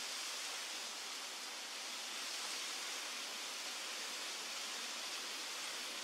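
Steady, even hiss of outdoor forest background noise, with no distinct calls or knocks.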